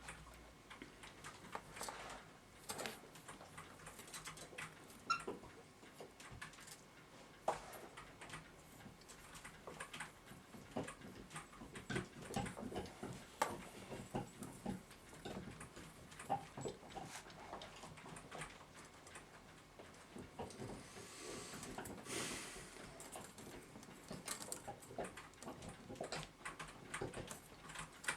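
Faint, irregular small clicks and scrapes as grease is worked onto a clock mainspring's coils with a Q-tip, with a short stretch of rubbing hiss about three-quarters of the way through.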